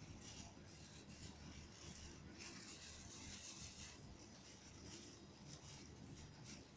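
Faint, irregular rustling and rubbing of a disposable plastic glove as a hand spreads toppings over pizza dough.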